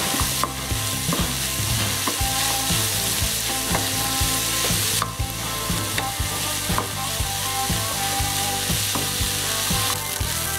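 Sliced shallots, onion and curry leaves sizzling in hot coconut oil in a pan as they are stirred, with a steady hiss and irregular knocks and scrapes of the utensil against the pan.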